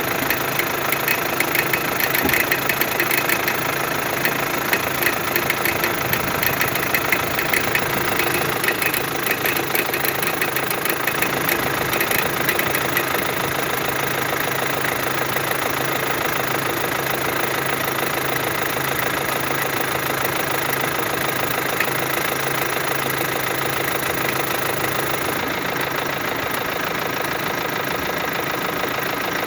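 Hyundai Santa Fe Classic CRDi diesel engine idling, with a rapid crackling over the idle for about the first half that then fades, leaving a smoother, steady idle. The crackle is the extraneous noise the owner hears only while the engine is cold in its warm-up idle, and it disappears once the engine is running normally.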